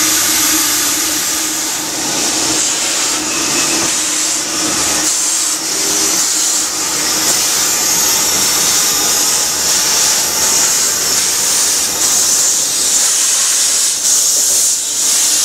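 Narrow-gauge steam locomotive hissing steadily. In the first few seconds a train of carriages runs past with a steady low tone under the hiss; later steam blows hard from the engine's open cylinder drain cocks as it moves.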